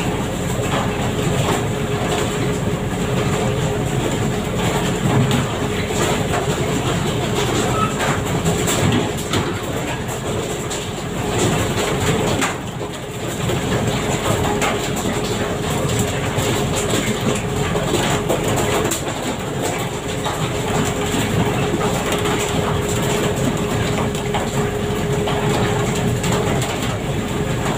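Deck sound of a large pole-and-line fishing vessel underway: a steady engine hum holding one constant tone, over the rush of water along the hull, with scattered light clicks and knocks.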